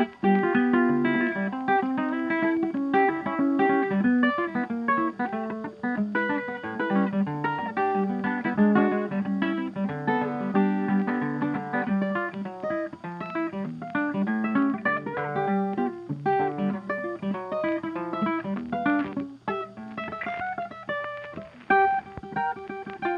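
Background guitar music: a guitar playing a busy run of plucked notes.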